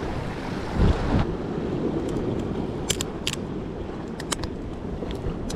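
Wind buffeting the microphone over waves washing against jetty rocks, with a dull thump about a second in and a few light clicks later on.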